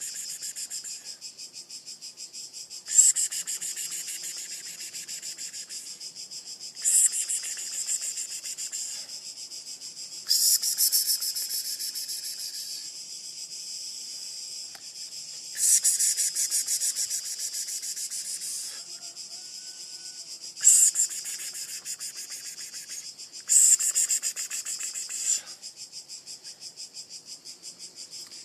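Insects buzzing high and fast in repeated bouts of two to three seconds, each starting loud and fading away, with a quieter steady pulsing of the same kind in between.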